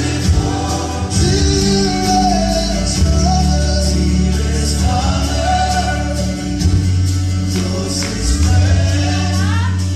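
Gospel music: a slow worship song with singing over long, held low notes.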